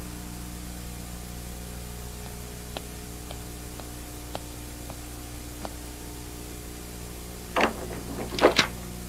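A few soft footsteps about half a second apart, then a door handle being turned and rattled and the door opening near the end, the loudest sounds here; all over a steady low hum.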